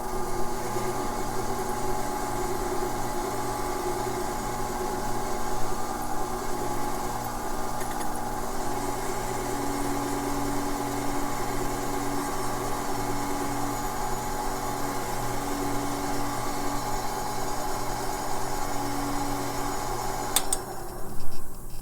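Faceting machine's lap motor running steadily while a gemstone's table facet is held by hand against the spinning lap to grind away material. The hum cuts off with a click near the end as the machine is switched off.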